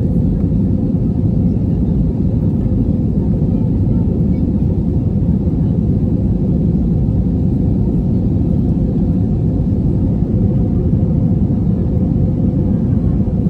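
Steady cabin roar of an Airbus A321 in flight, heard from a passenger seat: a deep, even rumble of engines and airflow with a steady hum over it.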